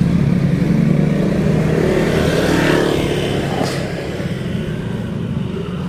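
Motor scooter engine running close by, then slowly fading as it moves off.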